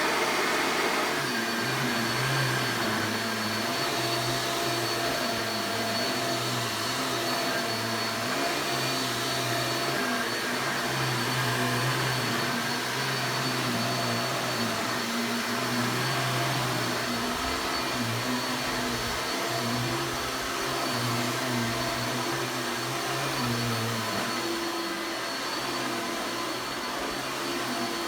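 1990s vacuum cleaner running steadily, with a high motor whine over a low hum that wavers up and down.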